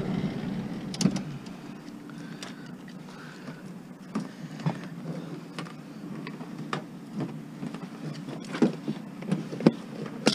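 Scattered clicks and knocks of hand tools and hands working at a scrapped appliance to get its power cord off, over a steady low hum.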